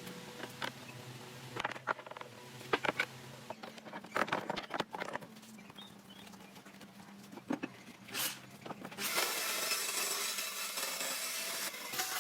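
Scattered knocks and clicks of wood and tools being handled. About nine seconds in, a steady rasping of a tool working wood begins, like sawing or filing.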